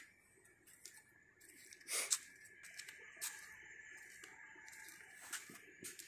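Scattered rustles and sharp clicks over a faint steady high whine, the loudest rustle about two seconds in.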